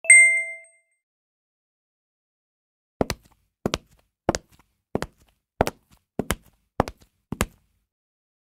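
Title-card sound effects: a short bright ding at the start, then eight quick double taps, evenly spaced about 0.6 s apart.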